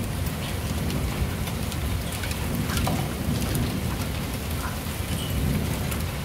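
Heavy rain pouring steadily, with scattered sharp ticks of drops striking close by, over a continuous low rumble of rolling thunder.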